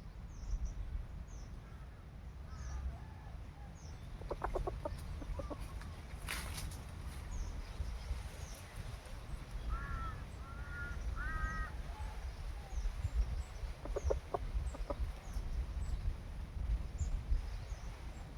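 Chickens clucking: a short run of quick clucks about four seconds in, a few higher calls around ten to eleven seconds, and another run of clucks near fourteen seconds, over a steady low rumble.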